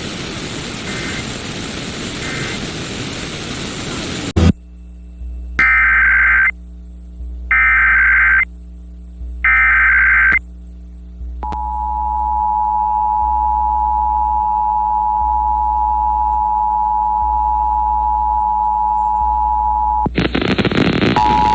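About four seconds of hissing radio noise, then an abrupt cut to an Emergency Alert System test received off the air: three roughly one-second bursts of shrill, warbling SAME header data tones about a second apart, followed by the steady two-tone attention signal (853 and 960 Hz) held for about eight and a half seconds before it cuts off. Hiss and another tone start near the end.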